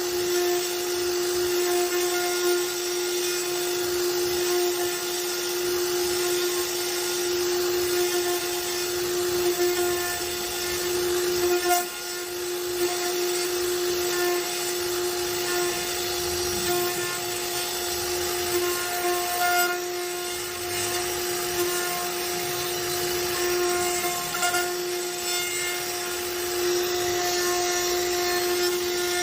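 CNC router spindle running with a steady whine while its bit carves wood, over a continuous hiss of cutting.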